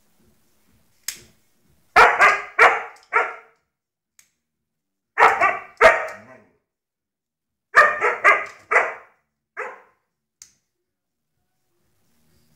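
Siberian husky barking at a lighter held out to it: three bursts of short, sharp barks, about ten in all. A single click comes about a second in, before the first burst.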